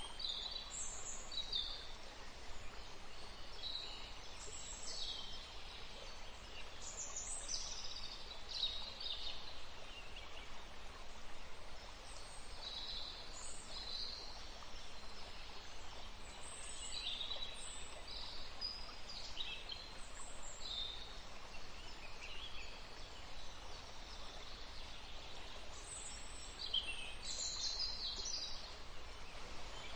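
Songbirds chirping and trilling in many short, high calls, scattered throughout, over a steady background noise.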